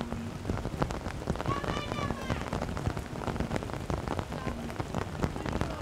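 Rain pattering close to the microphone, many small sharp drop hits over a steady hiss. A single shout from the pitch rises over it about two seconds in.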